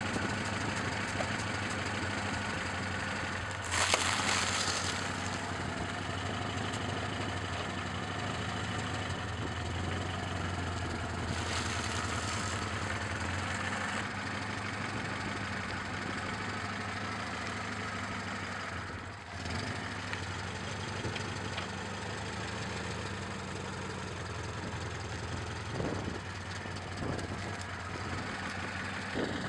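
Car engine idling steadily while a tyre rolls slowly over objects on concrete, with two brief loud crunching bursts, about four and about twelve seconds in, as snack packets are crushed under the tyre, and a few short knocks near the end.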